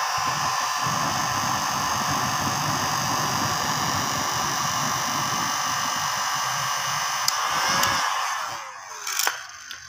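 Electric heat gun running, its fan blowing a steady rush of air with a faint motor whine. About eight seconds in it winds down and fades out, and a sharp click follows near the end.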